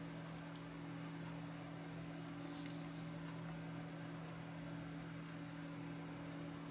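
White wax-based colored pencil (Prismacolor Premier) rubbing lightly on paper, burnishing over the colored petals, with a faint scratch now and then. A steady low hum runs underneath.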